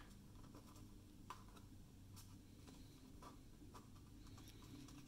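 Near silence: room tone, with a few faint ticks of the glitter cardstock hat being handled.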